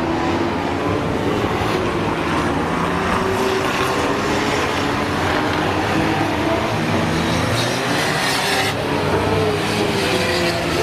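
Small race-car engines running hard around an oval track, their pitch rising and falling as the cars accelerate and lift off, with a brief hiss about two-thirds through.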